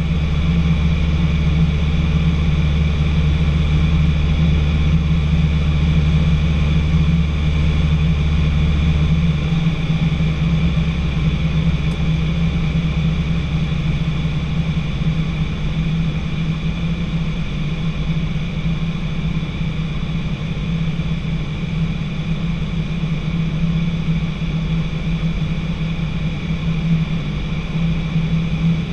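Piston engine and propeller of a light training aircraft droning steadily, heard from inside the cockpit. The deepest part of the hum drops away about ten seconds in.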